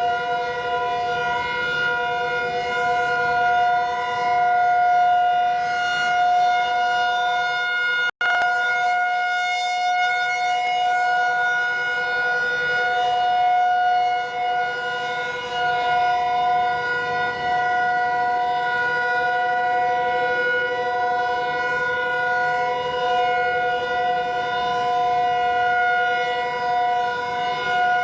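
Emergency Alert System attention tone: a loud, steady electronic tone at one unchanging pitch, held without pause except for a momentary dropout about eight seconds in.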